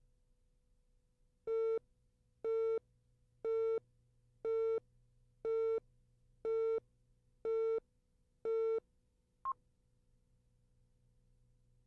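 Videotape countdown leader beeping: a steady mid-pitched tone sounding once a second, eight times, each beep about a quarter second long, then one short, higher blip about a second later. A faint steady hum lies underneath.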